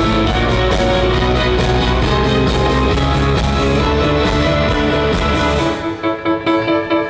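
Rock band playing live, with electric guitar over a full drum and bass backing. Near the end the drums and bass drop out, leaving a pulsing, rhythmic guitar figure.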